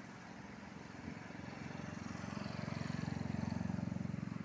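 Engine of a passing motor vehicle, a low pulsing hum that grows louder over the first few seconds and eases slightly near the end.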